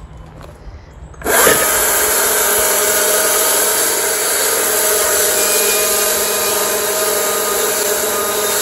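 Chainsaw starting about a second in and running steadily as it cuts through the end of a wooden board at the top of a post.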